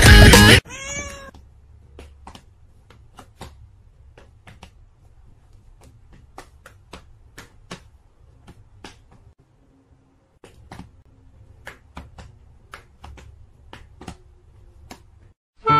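A domestic cat meows once, about a second in, in a single rising-then-falling call. After it come a series of sharp, irregular clicks or taps, roughly one or two a second, over a faint low rumble.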